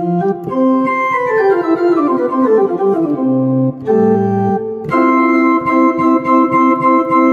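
Yamaha Clavinova CVP-403 digital piano playing its jazz organ voice at maximum volume: held chords, a descending run of notes about a second in, then a long held chord from about five seconds.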